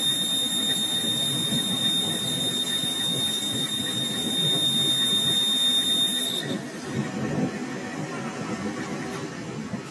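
Metal lathe boring a steel part: a steady high-pitched squeal from the boring bar cutting inside the bore over the rough running noise of the lathe. The squeal cuts off suddenly about six seconds in, as the tool comes out of the bore, and the lathe keeps running.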